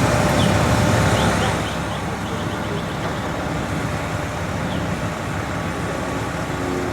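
Steady low rumble of idling fire apparatus engines, louder for the first second and a half and then settling to an even level, with a few faint short chirps in the background.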